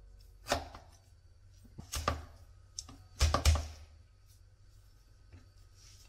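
Large kitchen knife chopping through baked chicken onto a plastic cutting board: a handful of sharp chops, some in quick pairs, over the first four seconds.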